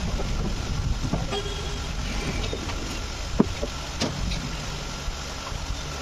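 Steady low rumbling background noise, with a few light knocks and scrapes as plastic scooter body panels are handled and worked by hand.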